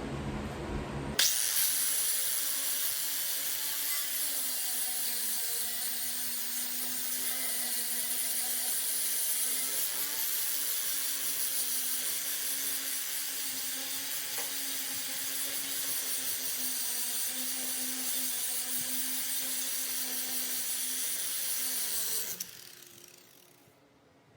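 Handheld power tool running continuously with a steady whine over a dense hiss. It starts abruptly about a second in and winds down near the end.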